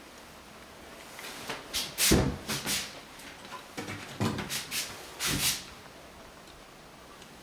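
Shoe cabinet doors being handled and swung open: a string of knocks and clacks over about four seconds, the loudest a couple of seconds in.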